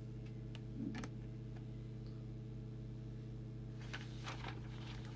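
Steady low electrical hum on the bench, with a few faint clicks and small handling sounds as a trimming tool works a preset on the radio's circuit board.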